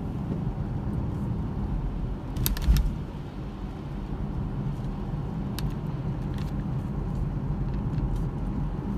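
A car driving, heard from inside the cabin: a steady low engine and road rumble. A short cluster of sharp clicks comes about two and a half seconds in, and a single click a few seconds later.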